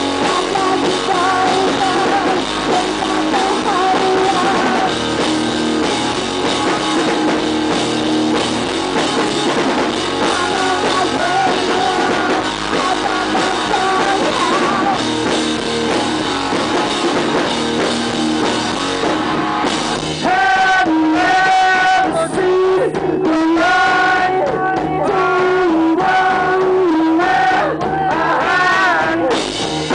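Live rock band playing loud: electric guitar, bass guitar and drums with singing, recorded right beside a large PA loudspeaker so the sound is harsh and distorted. About twenty seconds in the playing thins out and the singing stands out more.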